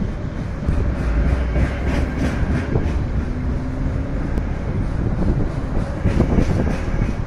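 Container wagons of a KiwiRail freight train rolling past: a steady rumble of steel wheels on rail with irregular clatter.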